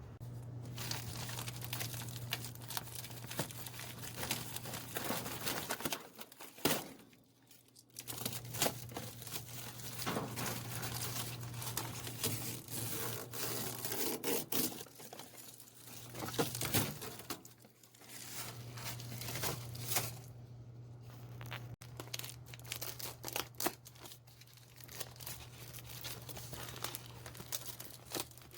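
Foil dryer vent material being handled: crinkling and tearing with many small crackles and scrapes, pausing briefly a few times, over a steady low hum.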